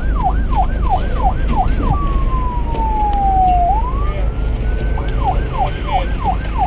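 Electronic police siren on a rapid up-and-down yelp, about two and a half sweeps a second. About two seconds in it changes to one slow falling tone that then rises again, and about five seconds in it returns to the rapid yelp, over a steady low rumble.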